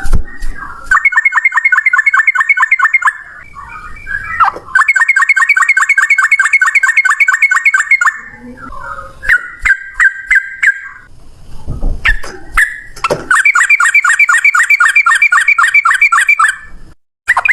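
Yellow-vented bulbul (trucukan) singing its long rapid rattling trill, a fast run of repeated notes kept up for a few seconds at a time. There are three such runs, with shorter chattering calls between them.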